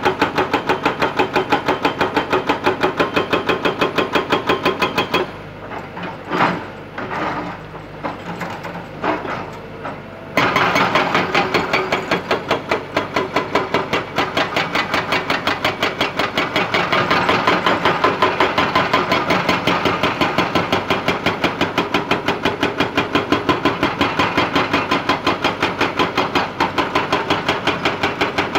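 Hydraulic rock breaker on a Kobelco excavator hammering rock in rapid, steady blows over the excavator's running engine. The hammering stops about five seconds in and starts again about five seconds later.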